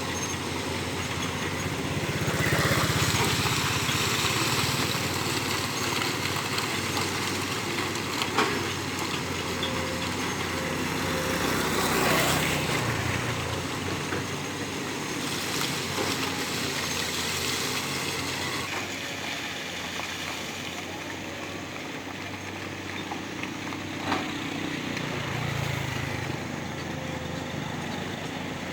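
Heavy construction machinery engine running, its level rising and falling, with a couple of sharp knocks.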